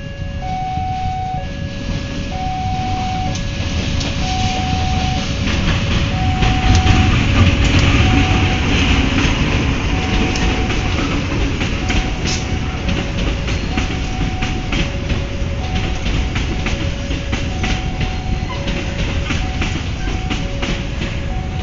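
Locomotive-hauled passenger train passing close by: the locomotive's engine rumble swells about seven seconds in, then the coaches follow with quick clicking of wheels over the rail joints. Over it, the level crossing's electronic warning alarm keeps sounding two alternating tones, about one a second.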